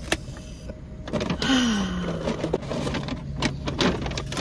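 Paper takeout bag rustling and crinkling as it is handled and opened, with a steady low hum underneath.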